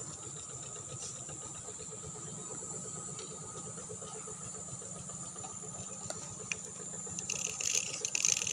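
Steady high-pitched chirring of crickets and other insects in a rice field, over a faint low hum. A louder rustling hiss rises near the end.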